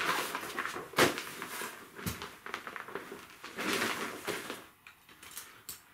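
Canvas storage bag being pulled off a folded Captain Stag cushion chair and its padded cushion cover being handled: irregular fabric rustling and swishing, with a light knock about a second in and another about two seconds in.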